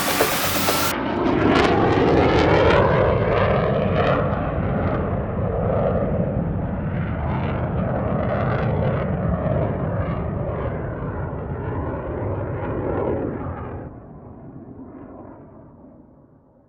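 A steady, loud engine-like roar with a low rumble beneath it, slowly shifting in pitch, then fading away over the last few seconds.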